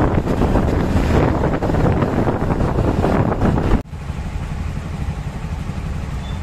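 Motorcycle riding in traffic, with wind rushing over the microphone and engine noise. About four seconds in the sound cuts abruptly to a quieter, steady low engine hum.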